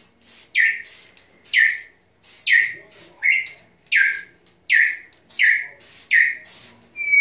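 Congo African grey parrot squalling over and over: about nine harsh calls, each falling in pitch, roughly one every three-quarters of a second, with a steady whistle starting right at the end.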